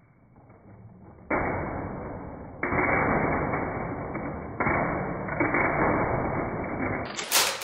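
Slowed-down sound of a tower of plastic magnetic building tiles being crashed into by a toy Jeep: a dull, deepened rushing clatter that surges up suddenly three times. Near the end the sound returns to normal speed with a brief sharp clatter of tiles.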